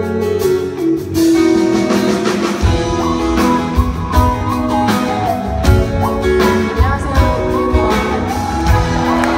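Live band playing the instrumental intro of an indie pop song, guitar to the fore, with a steady low beat coming in about two and a half seconds in.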